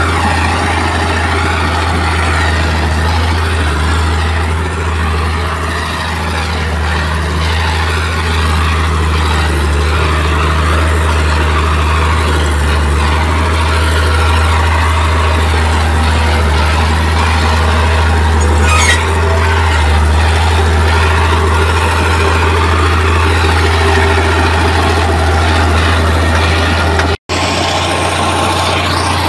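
Heavy diesel engine of an earthmoving machine running steadily with a deep, even drone. The sound cuts out for an instant near the end.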